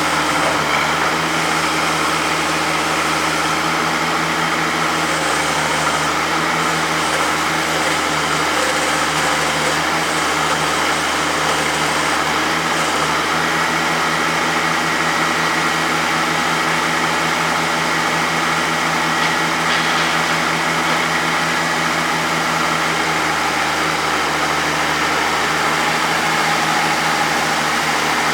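Oliver 88 tractor engine running steadily at a constant speed. A faint high whine joins for several seconds around the middle.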